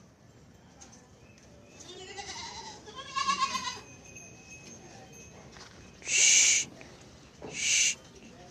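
Barbari goats bleating: a fainter call, then a louder wavering bleat about three seconds in. Two short, harsh, hissy sounds follow near the end and are louder than the bleats.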